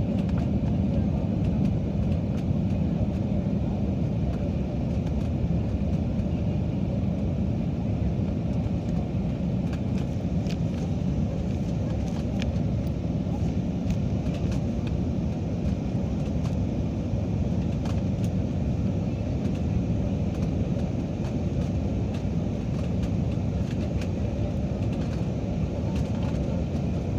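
Steady cabin noise of an Airbus A320-family jet airliner climbing through cloud: a constant low rumble of engines and rushing air that holds one level throughout, with a few faint ticks around the middle.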